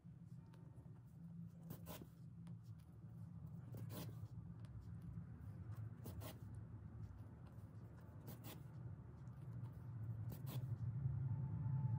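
Needle and yarn pulled through the edge of a knotted rug while hand-stitching the side: a short rasping scrape about every two seconds, five in all, over a steady low hum.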